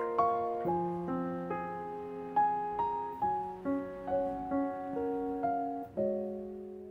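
Piano music: notes and chords struck at an unhurried pace, about two a second, each ringing and fading before the next. The last chord is left to die away near the end.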